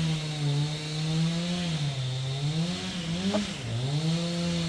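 A small engine running steadily, its pitch sagging once and then dipping sharply and climbing back, like a motor being throttled.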